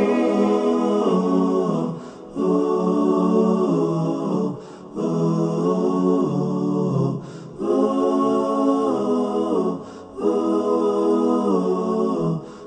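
A cappella naat vocals: layered voices holding sustained wordless phrases, about five phrases of two seconds each with short breaks between them.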